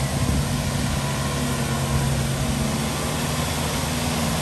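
Nissan Navara pickup running steadily as its front winch slowly pulls it through deep mud: a constant low engine drone with no sudden knocks or changes.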